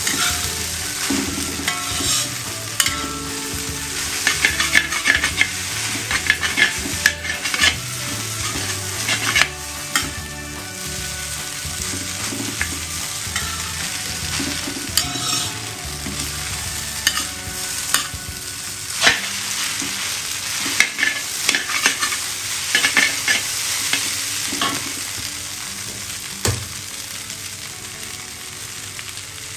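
Fried rice vermicelli being stir-fried in a hot pan: a continuous sizzle of frying, broken by frequent short knocks and scrapes of the utensil tossing the noodles.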